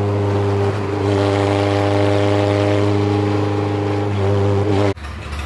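K-swapped Honda Civic's four-cylinder K20 engine on open headers, running at a steady highway cruise with a constant droning pitch. It cuts off abruptly about five seconds in.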